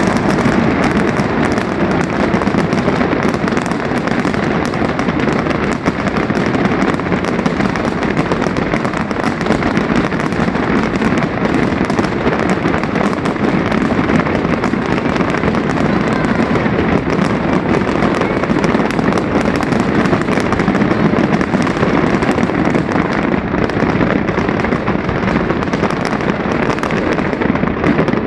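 Fireworks display going off in a dense, continuous barrage of bangs and crackling, with no break.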